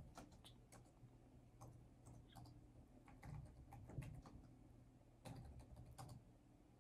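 Faint typing on a laptop keyboard: soft key clicks at an uneven pace, some in quick runs.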